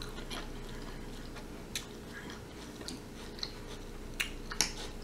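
A person chewing a mouthful of sausage and vegetable stir fry close to the microphone, with scattered short clicks, over a faint steady hum.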